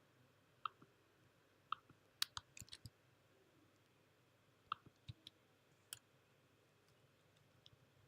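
Scattered keystroke clicks on a MacBook keyboard while a folder name is typed, with a quick run of several about two seconds in and then single keystrokes with pauses between them.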